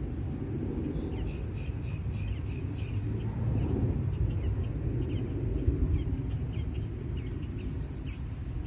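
Small birds chirping, short high notes repeated over and over, above a steady low rumble that swells a little in the middle.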